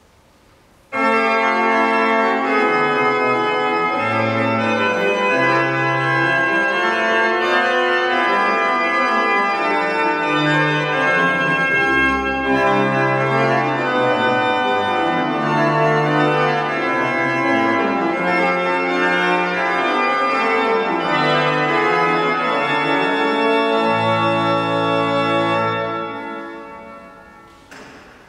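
Thomas pipe organ playing an aria in A minor. Sustained chords over a moving bass line enter suddenly about a second in. The last chord ends a couple of seconds before the close, and the church's reverberation dies away after it.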